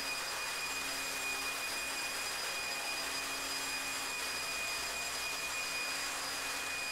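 Electric leaf blower running steadily: an even rush of air with a thin, steady high whine from its motor.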